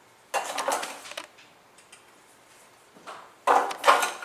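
Coffee-making gear being handled while a portafilter is prepared: a scraping clatter about a third of a second in, then two louder metallic clacks near the end.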